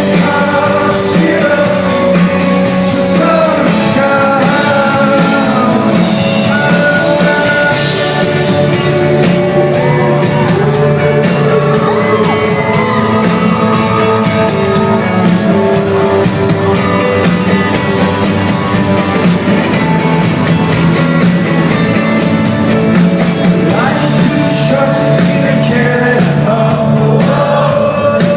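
A live band playing a song with a singer's lead vocal, in a concert hall. The bright high end of the mix thins out about eight seconds in, leaving a lighter, ticking beat.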